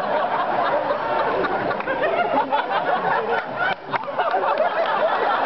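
A man's voice making action-movie sound effects with his mouth, in a dense run of vocal whooshes, hits and glides, over audience chuckling. There is a brief break a little before four seconds in.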